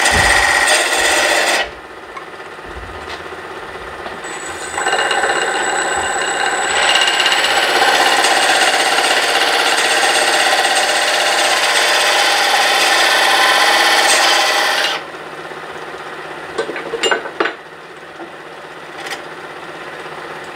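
A bedan cutting a sizing groove into a spinning cherry blank on a wood lathe, bringing it down to a 2-inch diameter: a steady scraping cut of steel on wood, a short cut at the start, then a long one from about four seconds in to about fifteen seconds, after which the cutting stops and only a few light clicks follow.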